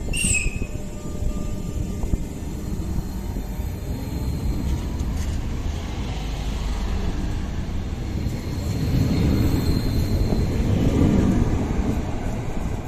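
Renfe Class 446 electric multiple unit pulling out and running past, a steady low rumble of wheels and running gear that grows louder from about eight seconds in. A brief high squeal sounds right at the start.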